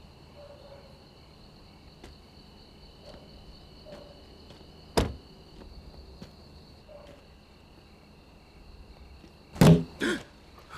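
Crickets chirping steadily, with a sharp click about halfway through and two loud thumps near the end.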